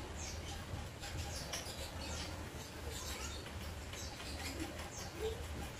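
Small birds chirping: many short, quick, high chirps that fall in pitch, over a steady low hum.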